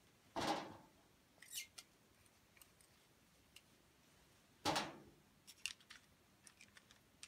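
Small clicks and clinks of a TIG torch being put together by hand: the tungsten electrode is slid into the torch head and the ceramic gas nozzle is fitted. Two louder clatters come about half a second in and just before five seconds in.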